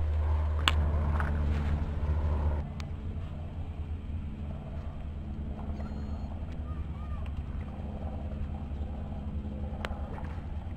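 Wind rumbling on the microphone outdoors, heavier for the first two and a half seconds and then steadier and lighter, with a faint steady drone underneath and a few sharp clicks.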